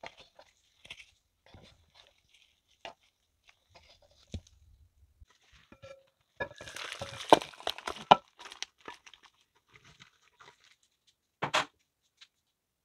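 A wooden spatula stirs braised beef ribs and vegetables in a pot, with scattered light knocks and scrapes. About halfway through comes a louder two-second stretch of rustling and clattering with several sharp knocks as the food is moved, and there is one short, loud scrape near the end.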